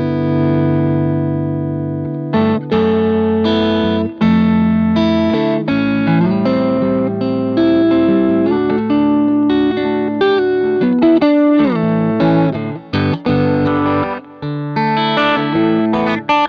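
Electric guitar: a Fender Stratocaster played through a JHS Whitey Tighty compressor pedal into a Vox AC30 amp. A chord rings out for about two seconds, then a run of chords and single notes follows with a few brief gaps.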